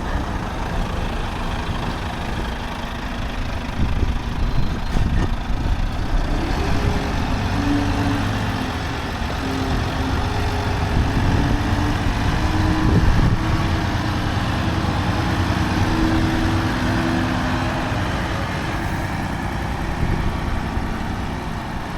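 Heavy truck engine running, a steady low rumble that grows a little louder around the middle.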